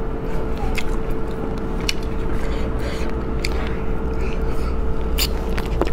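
Close-up mouth eating sounds: gnawing and chewing meat off small bones, with sharp clicks and crunches every second or so. A steady low hum runs underneath.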